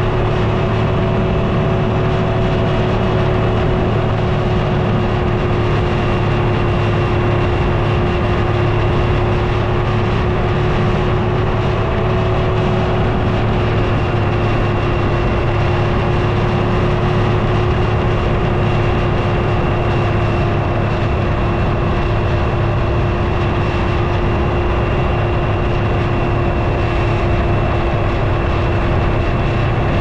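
KTM 790 Adventure motorcycle's parallel-twin engine running at a steady cruising speed under constant throttle, its pitch holding level.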